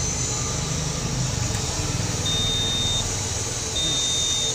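Mahindra 655 DI tractor's dashboard warning buzzer beeping twice, a high single tone about three-quarters of a second long with equal gaps, as the ignition key is switched on before cranking. A steady low hum sits underneath.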